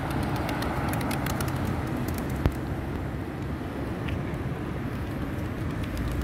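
Steady road traffic, cars passing on a busy road, with a flock of feral pigeons feeding close by. A run of light clicks in the first two seconds, and one sharp click about two and a half seconds in.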